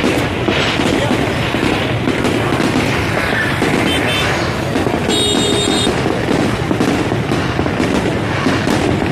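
Fireworks going off in a dense, continuous barrage of bangs and crackles, with brief high whistle-like tones about four and five seconds in.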